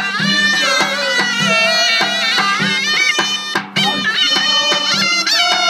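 Zurna playing a melody that bends and slides in pitch, over strokes of a davul bass drum, in the Turkish davul-zurna folk style.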